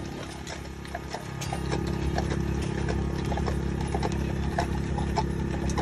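Horse-drawn wagon on the move: hooves clip-clopping and the wagon rattling and clicking, over a steady low rumble and hum.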